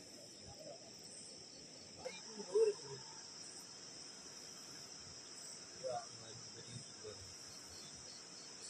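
Steady, high insect chorus of crickets or cicadas. A few brief lower sounds break in, the loudest about two and a half seconds in and another about six seconds in.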